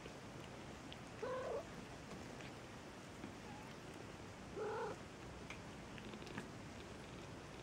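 Maine Coon cats with a litter of kittens: two short mews, about a second in and again about four and a half seconds in, over steady purring.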